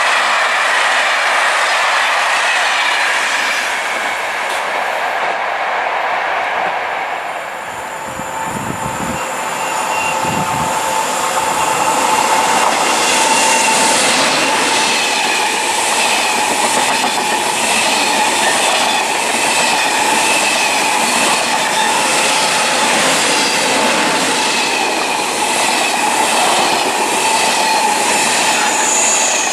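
Trains passing through a station: the sound of one eases off over the first several seconds. Then another passes close with a steady rhythmic clickety-clack of wheels over rail joints and a steady high whine.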